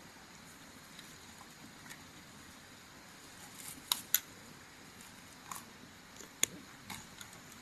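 Giant panda chewing bamboo, with sharp crunches and snaps of the stalks and leaves. Faint crackles at first, then two loud crunches close together about four seconds in and another about six and a half seconds in.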